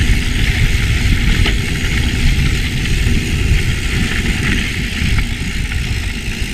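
Wind rumbling and buffeting on the microphone of a moving mountain bike, over a steady hiss of tyre and trail noise.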